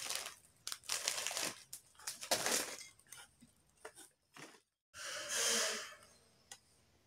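Clear plastic bag of long krupuk crackers crinkling in the hands in several bursts, followed by a few light clicks and a brief rushing noise about five seconds in.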